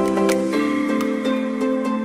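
Background music: a gentle instrumental track of plucked and mallet-like notes over sustained tones.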